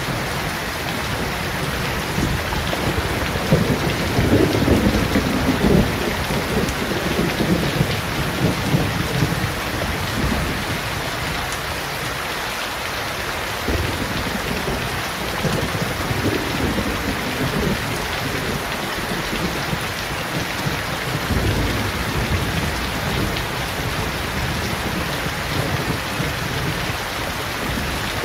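Steady rain falling on leaves and a wet paved yard, with irregular low rumbling swells beneath it, loudest about four to six seconds in.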